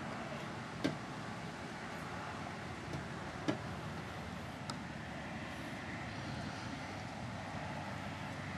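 Steady wash of distant city traffic noise, with a few sharp clicks: one about a second in, a louder one about three and a half seconds in, and a fainter one soon after.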